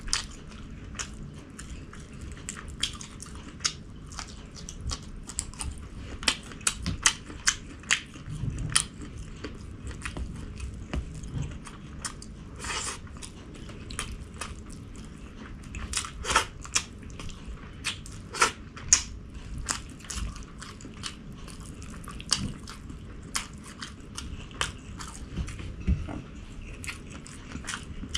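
Close-miked eating sounds: a person biting and chewing food, with irregular sharp wet clicks and crunches a couple of times a second, some much louder than the rest.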